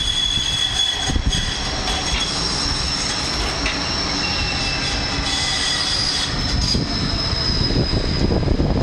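Bombardier Flexity 2 light rail tram passing close by with a rumble and several high, steady whining tones. Near the end a concrete mixer truck's diesel engine rumbles past, growing louder.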